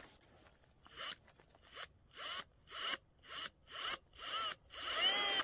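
Milwaukee cordless power tool's motor run in about eight short trigger pulses, each a brief whine that spins up and winds down. The pulses come about twice a second and get longer toward the end, as the tool works a fastener on the power tiller engine.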